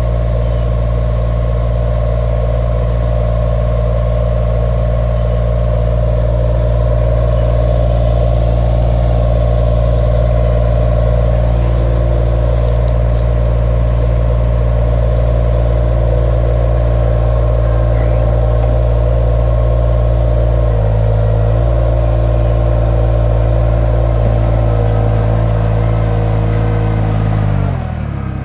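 Mini skid steer's engine running steadily as the machine works. Its note shifts slightly about three-quarters of the way through, and near the end the revs dip briefly and then pick back up.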